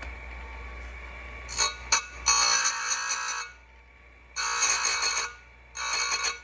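Farmertec bench chain grinder (an Oregon 511 clone) humming, then its abrasive wheel grinding a chainsaw chain cutter in several passes, each a high-pitched rasping squeal lasting about a second, with brief quieter gaps as the wheel is lifted.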